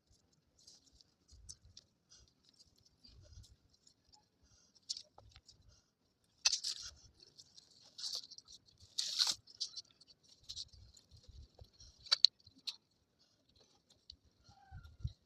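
Irregular rustling and crackling of dry leaves and plant stems being handled, with a few sharper, louder crackles in the middle and faint low bumps.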